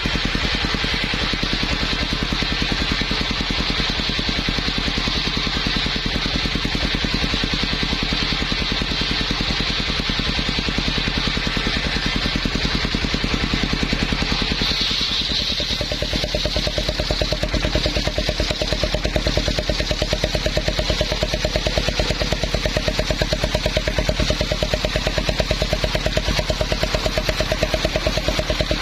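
Engine-driven circular saw running with a steady, rapid engine beat and a high whine. About halfway through, the sound shifts to a stronger, more even pulsing.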